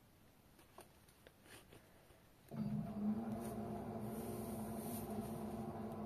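Front-loading washing machine during its wash: the drum rests quietly with a few faint clicks, then about two and a half seconds in the drum motor starts and hums steadily as it tumbles the laundry.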